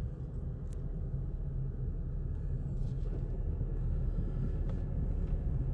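Steady low rumble of a car driving slowly along a paved road: engine and tyre noise.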